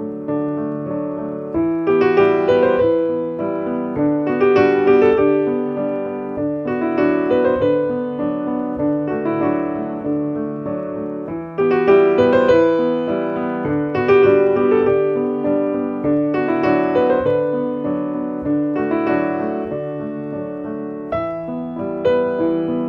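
Background piano music: a melody over held chords, in phrases that swell and fade every couple of seconds.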